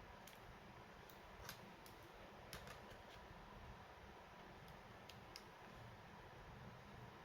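Faint, scattered clicks and ticks of small plastic and metal laptop parts being handled, about ten in all at irregular intervals over a low steady hiss.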